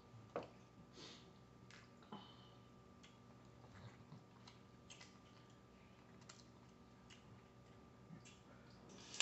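Faint, scattered clicks and crackles of cooked crawfish shells being cracked and peeled by hand, with soft eating sounds; otherwise near silence.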